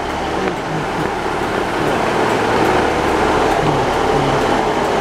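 A Class 150 Sprinter diesel multiple unit running beside the platform: a steady rumble and hum from its underfloor diesel engine.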